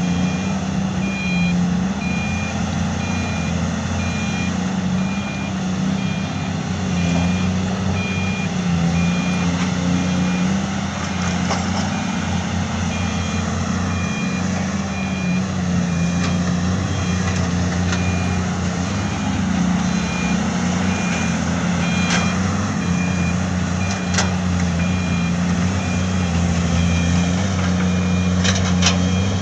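Heavy diesel construction machinery running steadily, with a reversing alarm beeping about once a second on and off, as a dump truck backs up. A few sharp knocks sound in the last third.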